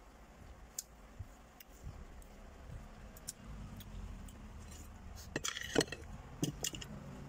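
Spoon and fork clinking against a plate, with a quick run of clinks about five and a half seconds in and a few more near the end. Scattered light clicks of eating come before them.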